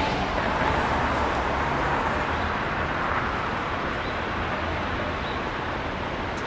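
Steady outdoor city noise, mostly a traffic rumble, with no single event standing out.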